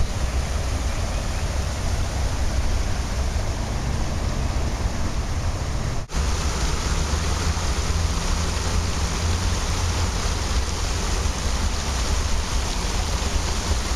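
Steady rushing of water falling from a small rock waterfall into a garden pond, mixed with a low rumble of wind on the microphone. The sound cuts out for an instant about six seconds in.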